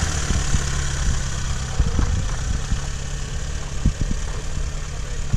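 Lada Niva's four-cylinder engine running steadily at low revs, with a few dull thumps.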